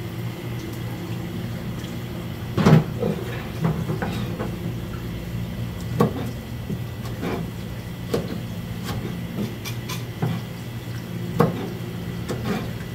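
Kitchen knife chopping through gizzard shad onto a plastic cutting board: irregular sharp knocks about once a second, the loudest about two and a half seconds in. Under them run a steady low hum and trickling water from a hose.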